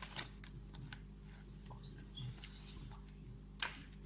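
Scattered light clicks and taps of small plastic toy pieces being handled, over a steady low electrical hum.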